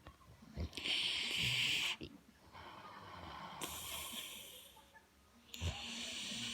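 Wheezy snoring: a loud hissing snore breath about a second in and another near the end, with a softer breath between them.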